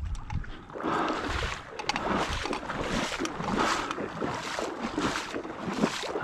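Footsteps wading through shallow marsh water: a run of irregular splashing steps.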